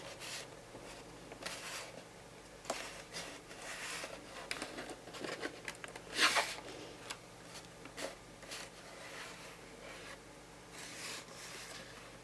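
Scattered clicks and brief scraping and rubbing from hands handling a laptop and its parts, with one louder scrape about six seconds in.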